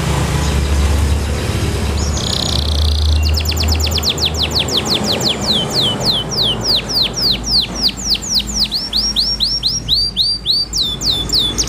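Domestic canary singing: a short held whistle, then a long run of quick down-slurred notes, about four or five a second, that speed up into a faster roll near the end. A low rumble underlies the first few seconds.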